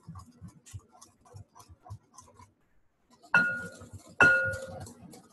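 Two sharp clinks about a second apart, each ringing on briefly: a whisk or spoon striking a mixing bowl. Quieter, uneven knocking of mixing comes before them.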